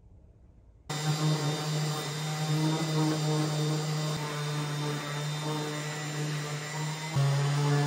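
Random orbit sander with a dust-extraction hose attached, running steadily on a wooden tabletop to strip the old finish. It starts abruptly about a second in and gets louder near the end.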